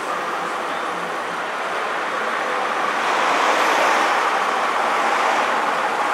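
Bristol VRT double-decker bus in Southdown livery driving slowly past close by. Its engine and road noise make a steady sound that grows louder about halfway through as it draws level.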